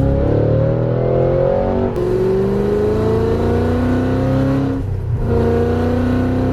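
Cadillac CT5-V Blackwing's supercharged 6.2-litre V8, fitted with Stainless Works headers and catback exhaust, pulling hard under full acceleration. The pitch climbs steadily and drops at two upshifts, about two and five seconds in.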